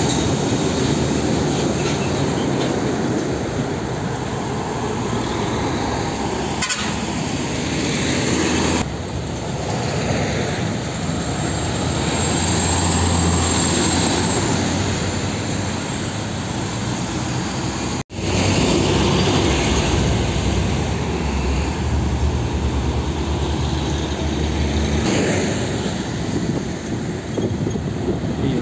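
Heavy diesel trucks passing close by on a highway: a steady engine drone with tyre noise that swells as each truck goes by. The sound cuts out for a moment about two-thirds of the way through.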